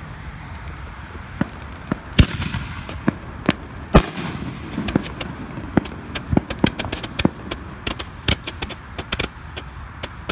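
Consumer fireworks going off: an irregular run of sharp pops and crackles, with louder bangs about two and four seconds in.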